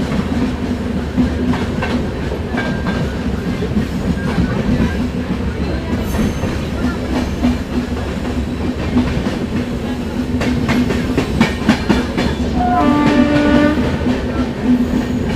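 Indian Railways express train running at speed: a steady rumble with wheels clattering over rail joints, and a horn blast of about a second near the end.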